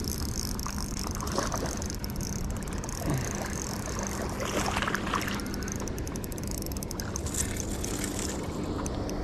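Spinning reel being cranked as a hooked largemouth bass is fought in, with a splash from the fish at the surface about halfway through, over a steady low rumble.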